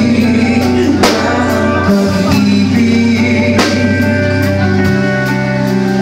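Live alternative rock band playing: electric guitars, bass guitar and drum kit, with the vocalist singing into a microphone. Cymbal crashes come about a second in and again midway.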